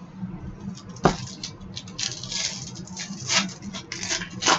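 Trading cards and a foil card pack being handled: irregular rustling and crinkling, with a sharp tap about a second in and another near the end.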